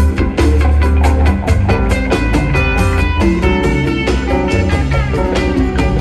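Rock band playing live: a quick run of guitar notes over heavy bass and drums.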